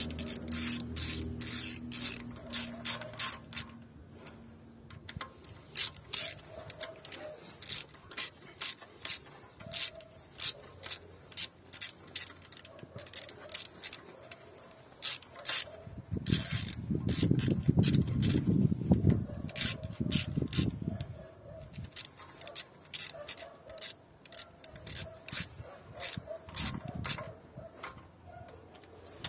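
Socket ratchet clicking in quick runs as it is swung back and forth on a long extension, turning the bolts that hold the ignition coil packs. A low rumble runs for several seconds around the middle.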